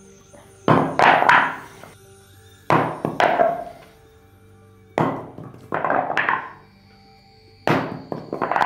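Hesco L210 ceramic body armor plate, in its fabric cover, dropped onto a concrete floor four times. Each drop is a sharp hit followed by a short clattering bounce. Background music plays underneath.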